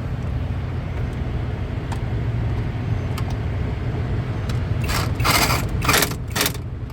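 Steady low rumble of an idling truck engine, with a few short, harsh bursts of a power driver running bolts into the clutch switch housing about five seconds in.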